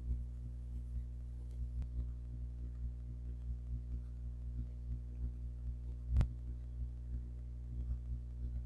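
A low, steady drone with a faint throbbing pulse, and a single sharp click about six seconds in.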